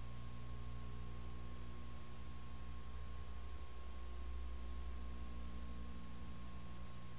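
Steady low electrical hum with hiss and a thin high whine, unchanging throughout: the background noise of a silent home movie's transfer, with no sound from the scene itself.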